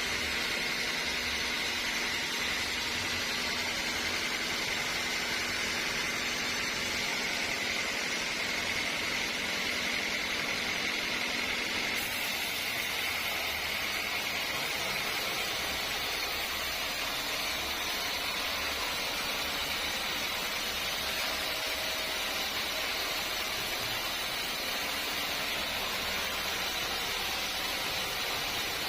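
Sawmill saw running steadily with a constant noise and a faint high whine that fades about halfway through.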